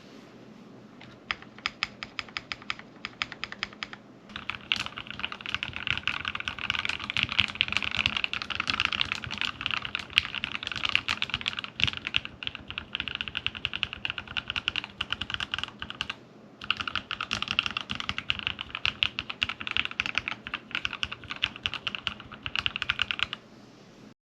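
Typing on a custom Feker IK75 mechanical keyboard with lubed Gateron Inky Black v2 linear switches and PBT keycaps. A few scattered keystrokes at first, then fast continuous typing with a brief pause about two-thirds through, stopping just before the end.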